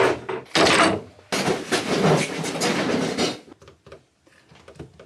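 Tools and clamps clattering and rattling as they are rummaged through and moved about on a workbench. The noise is loudest in the first three seconds or so, then gives way to a few lighter clicks and knocks.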